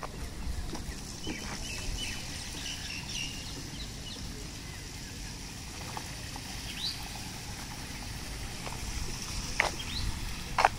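Outdoor ambience after rain: birds chirping in short calls over a low steady rumble, with two sharp clicks near the end.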